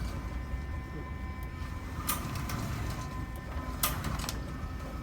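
Steady mechanical hum of an indoor shooting range, with two sharp, muffled gunshots from other lanes about two and four seconds in.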